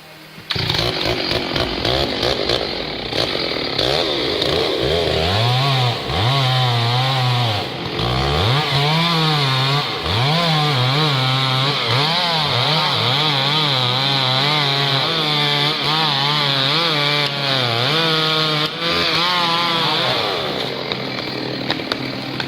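Chainsaw running hard and cutting wood. The engine note repeatedly dips and recovers as the chain loads up in the cut.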